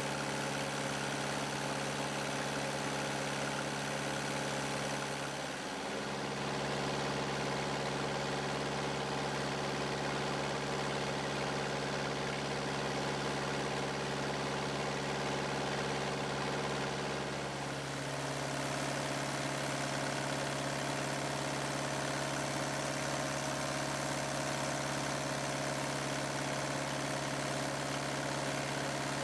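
Kubota V2203 four-cylinder diesel engine running steadily at high speed, its tone shifting slightly twice, about 6 seconds in and again about 18 seconds in.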